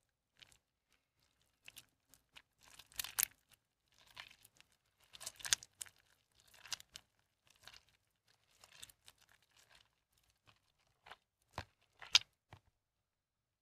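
Soaked, mushy bar soap being squeezed and crumbled by hand in a tub of soapy water, in irregular bouts of crackly squishing with short pauses between squeezes. A few short, sharp crackles come near the end.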